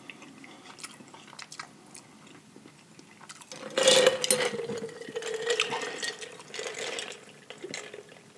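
Drink being sipped through a straw from a glass jar, with wet liquid sounds. It starts about three and a half seconds in, loudest at first, with a steady tone running under it for a few seconds.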